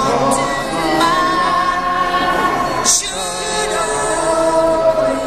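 Music with singing voices, with a single sharp bang about three seconds in.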